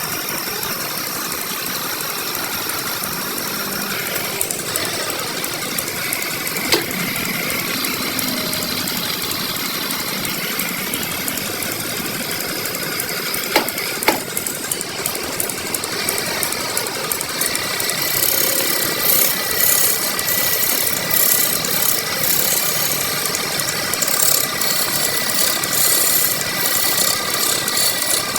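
A power tool running steadily while shaping wood, with a few sharp knocks in the first half. In the last third a high-pitched whine comes in along with fast, uneven rasping as the tool bites into the wood.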